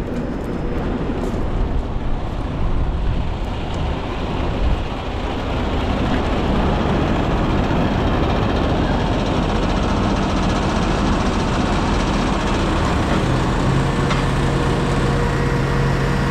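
Heavy diesel truck engine running, growing louder about five seconds in and settling into a steady, higher engine note near the end.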